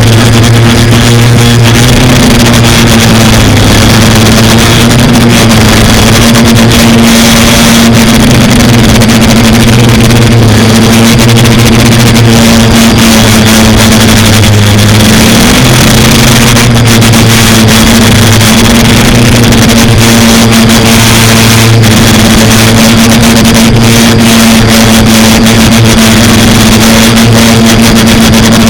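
FPV quadcopter's electric motors and propellers buzzing loudly without a break, the pitch dipping and recovering slightly a few times with the throttle.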